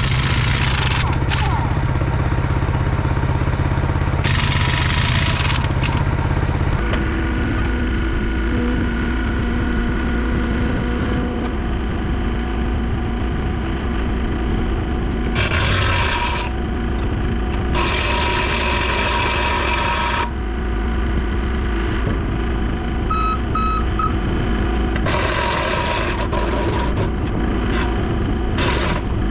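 Farm tractor's diesel engine running steadily, with several short bursts of hiss over it.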